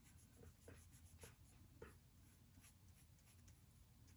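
Faint, irregular scratching strokes of a paintbrush on paper as a watercolour swatch is laid down.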